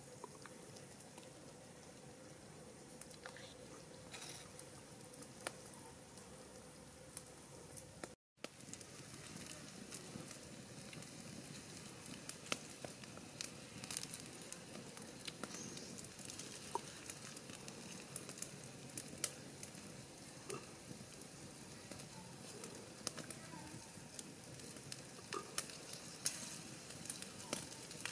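Tire track eels sizzling on a hot flat stone over a wood fire, with many small pops and crackles. After a brief dropout about eight seconds in, the sizzling is louder and busier.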